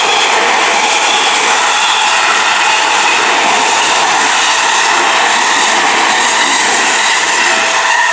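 Seibu Ikebukuro Line electric train passing over a level crossing at close range: a loud, steady rush of wheels and running gear on the rails, beginning to die away near the end.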